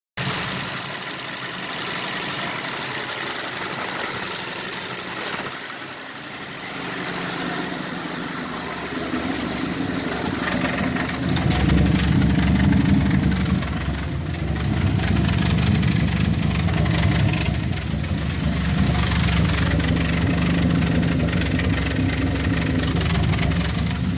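Chrysler 225 slant-six engine of a 1966 Dodge Dart GT running, only just holding a rough idle. About halfway through it grows louder and deeper.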